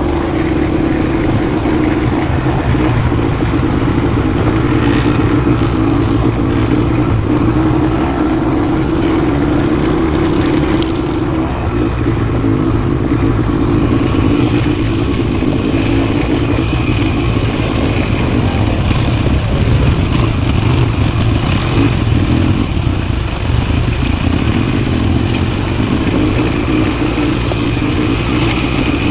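ATV engine running steadily at an even speed, with no sharp revving.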